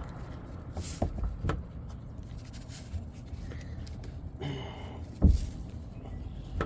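A few dull knocks over rustling handling noise, the loudest knock about five seconds in.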